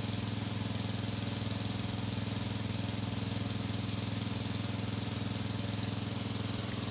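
Small engine running steadily at one constant speed, an even low drone.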